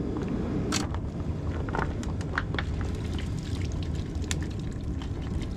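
Wind rumbling on the microphone, with a few scattered light clicks and taps.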